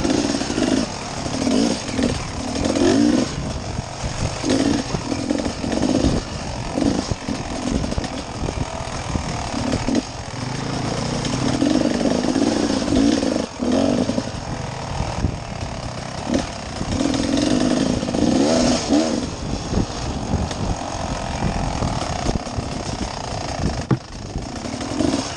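Dirt bike engine revving up and down over and over as the throttle is worked along a rough trail, with scattered knocks from the bike over the bumps.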